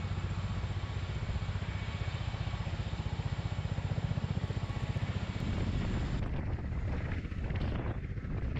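Sikorsky-Boeing SB>1 Defiant coaxial-rotor compound helicopter hovering low, its rotors beating in a rapid, steady throb. The sound turns duller about six seconds in.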